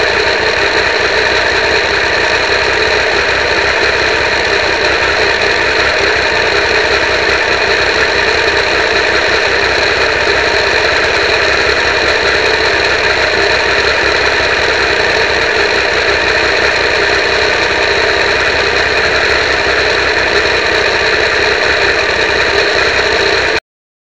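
Triumph 955i motorcycle running at a steady pace, heard as a loud, harsh, unchanging drone through a cheap keyfob camera strapped to the foglight. The sound cuts off abruptly about half a second before the end.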